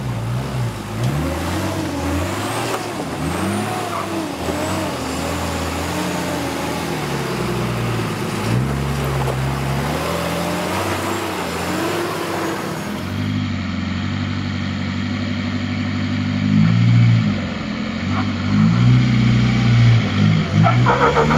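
Ford Maverick (Nissan GQ Patrol) 4x4 engine revving up and down as it crawls over rocks. About thirteen seconds in, it gives way to a GU Nissan Patrol's engine revving harder in surges as it climbs a rocky track.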